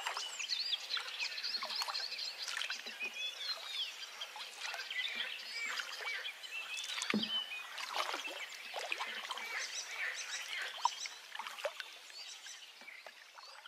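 Several songbirds chirping and singing together, a dense mix of short chirps and quick rising and falling whistles that fades near the end.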